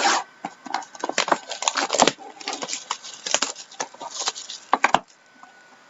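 Crinkling, rustling packaging with many sharp clicks and snaps as a sealed trading-card box is handled and opened, dying down near the end.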